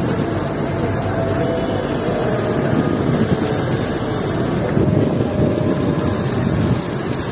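Steady low rumble of urban background noise, a little quieter near the end.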